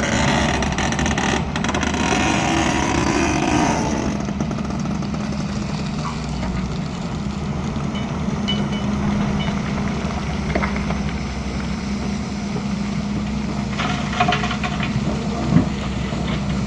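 Heavy diesel machinery engine running steadily, with a rougher, louder stretch of working noise in the first few seconds and a few short knocks later, the sharpest near the end.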